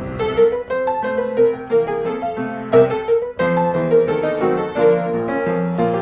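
Background piano music: a melody of short, quick notes over lower chords.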